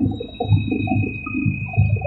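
Helicopter cabin noise: a steady high turbine whine over an uneven low throbbing rumble.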